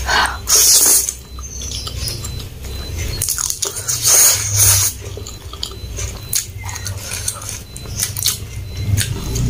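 Close-miked eating of fried instant noodles: two loud slurps as forkfuls of noodles are sucked in, about half a second in and about four seconds in, with wet chewing between them.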